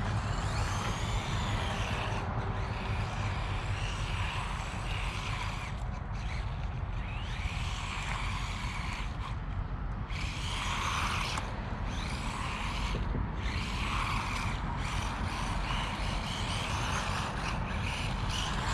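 Small 1/18-scale RC car's brushed 380 electric motor whining up and down with the throttle over a steady low rumble, cutting back briefly several times as the throttle is let off.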